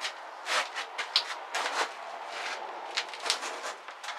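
Irregular light clicks, knocks and scrapes of metal workshop parts and tools being handled at a bench.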